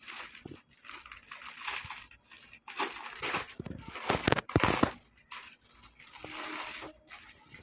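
Clear plastic garment packet crinkling and rustling as it is handled and opened, in irregular bursts, with a few sharper, louder crackles about four to five seconds in.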